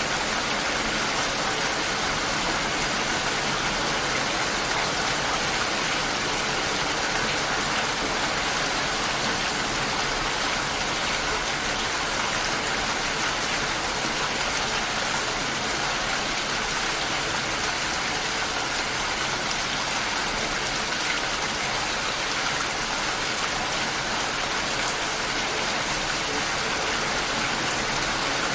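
Steady light rain falling, an even hiss with no thunder and no distinct drops standing out.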